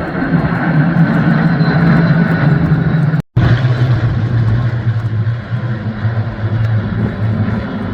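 Loud, steady drone of a large formation of Spitfire and Hurricane piston aero engines flying over. After a brief break about three seconds in, the drone comes back lower in pitch.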